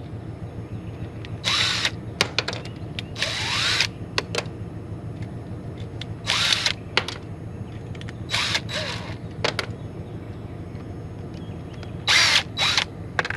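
Small power drill run in several short bursts of under a second each, working apart an electronic pressure switch, over a steady low hum.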